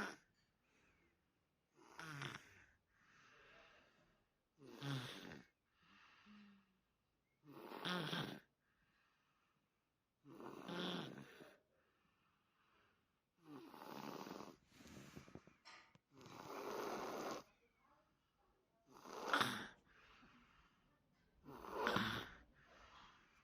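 A young child snoring in sleep, with a louder snore about every three seconds, each followed by a softer breath sound.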